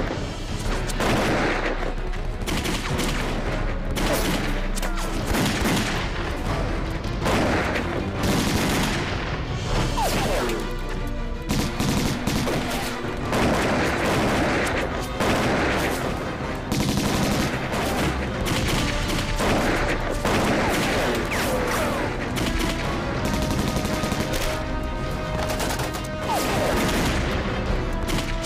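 Sustained battle gunfire: many rifles and a machine gun firing in rapid, overlapping volleys.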